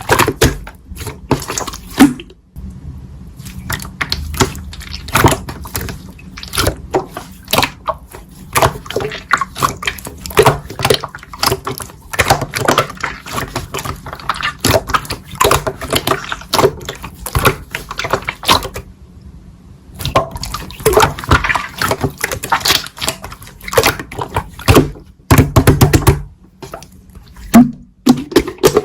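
Slime being squished and pressed: rapid wet clicks, pops and crackles, with a short pause about two-thirds of the way through.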